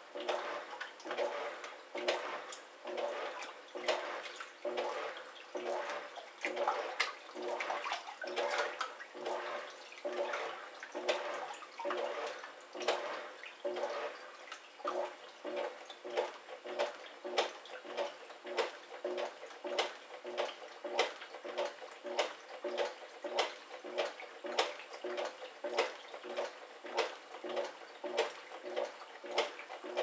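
Top-loading washing machine in its wash cycle: the motor drives the pulsator back and forth in a steady rhythm with water sloshing in the tub. Each stroke sounds like a voice calling "obahan!". In the second half the strokes come shorter and quicker, like "oba! oba!".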